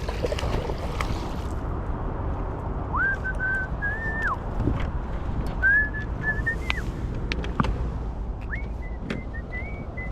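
A whistled tune: a series of held notes with short slides between them, beginning about three seconds in, over a steady low background rumble.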